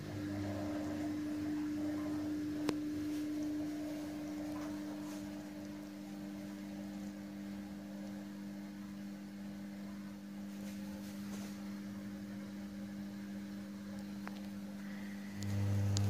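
Samsung WW10H9600EW front-loading washing machine running at the start of its cotton main wash: a steady hum of the drum turning, with a single sharp click about three seconds in. Near the end a deeper, louder hum sets in.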